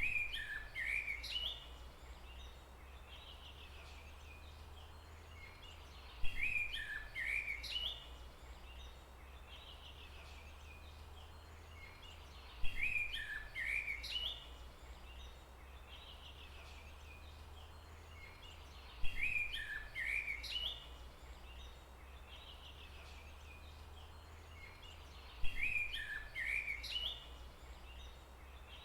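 A bird's call phrase of a few quick chirps repeats five times, about every six and a half seconds, over a steady low rumble.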